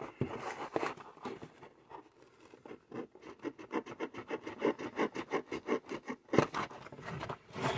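A knife sawing and scraping at the plastic tie that holds an action figure to its cardboard insert. There are scattered scratches at first, then a quick, even run of strokes, several a second, for about three seconds in the middle, and one louder scrape near the end.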